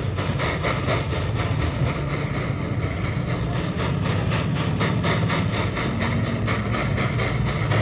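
A motor running steadily with a low hum, overlaid by rapid, irregular clicking.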